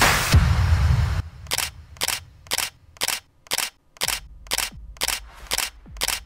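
Electronic music cuts off about a second in. Then come sharp clicks, repeating evenly about twice a second.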